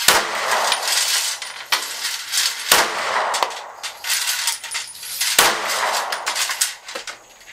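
A series of 9mm pistol shots from a Rost Martin RM1C, fired one at a time about a second or two apart, each a sharp crack.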